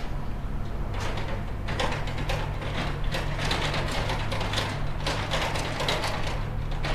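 Steady low engine hum with irregular clattering and scraping over it, thickest from about one second in.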